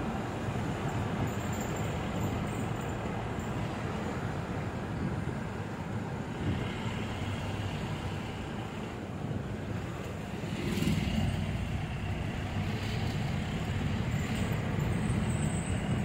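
Car on the move: steady engine and road noise, with a slightly louder stretch about eleven seconds in.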